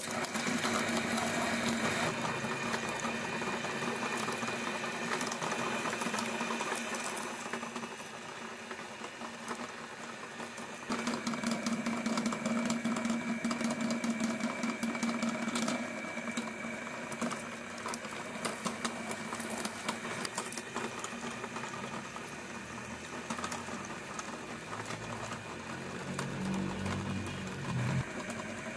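Electric meat grinder running steadily, its motor humming with a whine, while small rubber bouncing balls click and rattle against the steel hopper and turning auger as they are ground.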